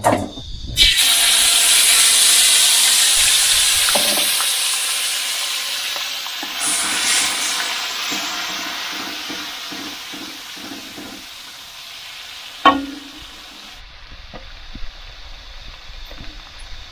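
Ground chili paste for sambal frying in hot oil in an aluminium wok: it starts sizzling loudly about a second in, then the sizzle slowly dies down while a wooden spatula stirs it. A sharp knock of the spatula against the wok about three quarters of the way through.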